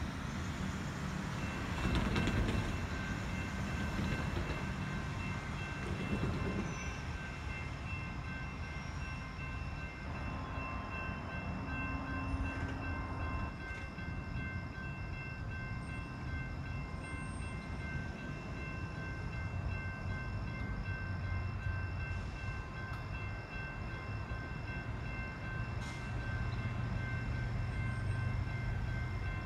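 Distant train approaching: a steady low rumble, with several steady high ringing tones over it that come in about two seconds in and hold.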